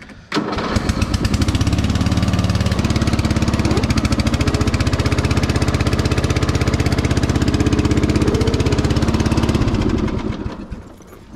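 Riding lawn mower's Briggs & Stratton engine running loud and steady with a rapid, even firing beat while the mower blade is being engaged. It comes in abruptly just after the start and dies away about ten seconds in. Afterwards the owner wonders whether the deck is seized up.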